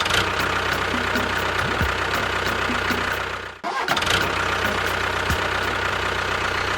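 An engine running steadily with a regular ticking; it cuts out abruptly a little past halfway and comes straight back.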